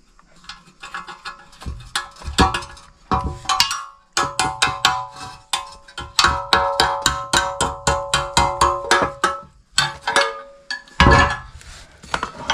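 Rapid metallic clinking, about four to five strikes a second, with a ringing metal tone: open-end spanners working a nut on the steel steering idler arm of a Maruti Omni. A louder clatter of metal parts being handled comes near the end.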